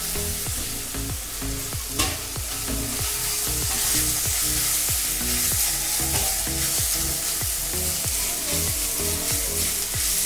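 Chopped onions, cumin and ginger-garlic paste sizzling in hot oil in a nonstick pan, stirred with a silicone spatula. A single sharp click about two seconds in.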